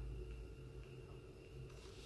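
Quiet room tone with a faint, steady low hum and no distinct event.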